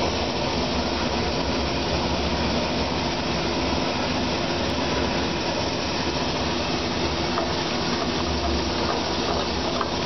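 DoAll 20-inch vertical band saw running steadily in low gear: an even mechanical hum of motor, drive and blade.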